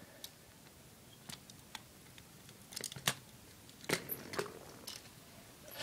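A few faint, scattered clicks and taps, handling noise from small toy tractor models being moved and set down.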